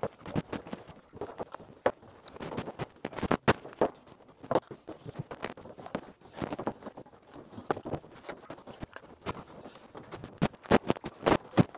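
Irregular light taps and clicks of hands handling small superglue bottles and flexing the plywood kayak panels while spot-gluing the seams, a little busier near the end.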